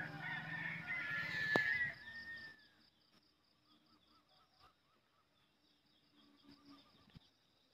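Rural field ambience before dawn: insects chirping steadily, with a long whistled call that bends down in pitch about two seconds in. Soon after, the background noise cuts off abruptly, leaving only faint, evenly repeating chirps.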